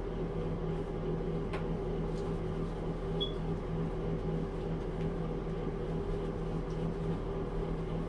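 A steady low mechanical hum in a small room, with one light click about a second and a half in.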